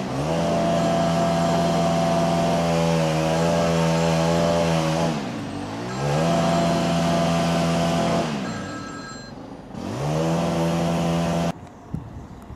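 Diesel engine of a Pacer-type railbus running hard as the train approaches. Its pitch dips and climbs back three times, then the sound cuts off abruptly near the end.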